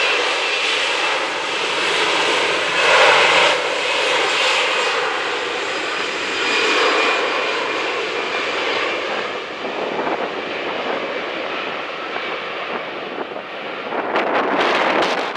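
Airbus A321 jet engines running loud and steady as the airliner rolls down the runway, with a thin whine over the roar. Near the end, wind gusts buffet the microphone.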